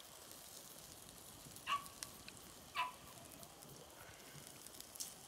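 Campfire crackling faintly with small pops. A dog barks twice, about two seconds in and again a second later.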